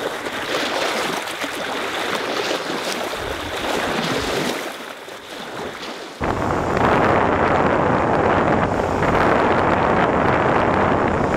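Wind buffeting the microphone and water rushing past the hull of a boat underway on the lake, a steady hiss and rumble. It jumps abruptly louder about six seconds in.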